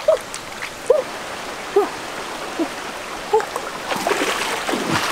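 Shallow rocky stream running, with scattered gurgling plops of water. About four seconds in, louder splashing as water is churned up.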